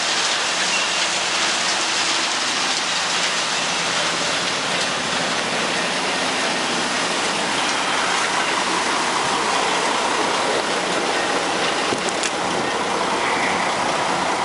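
Wood chips pouring from a wheel loader's bucket into a chip trailer, a steady rain-like rushing hiss, with a low diesel engine hum underneath.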